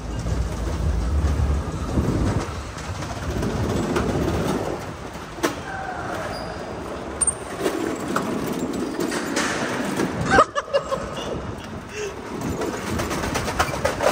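Go-kart running along an indoor track, heard from on board: a steady rumble of motor and tyres on the concrete floor, with a sharp knock about ten seconds in.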